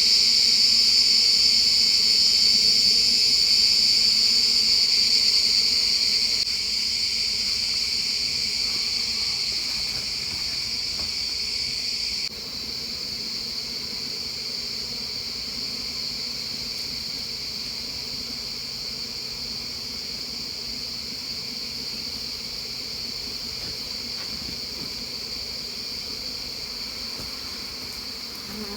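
Steady, high-pitched shrill of a forest insect chorus. It drops abruptly in level about six seconds in and again about twelve seconds in, with a faint low hum underneath.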